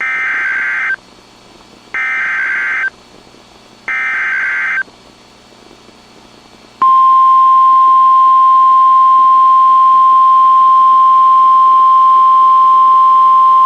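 Emergency Alert System SAME header, three one-second bursts of shrill digital data tones about two seconds apart, announcing a severe thunderstorm warning. About seven seconds in, the loud, steady, single-pitch weather-radio warning alarm tone starts and holds.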